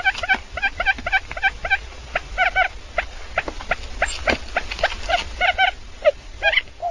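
Quail calling: a rapid run of short chirping calls, several a second, coming in clusters with brief pauses between them.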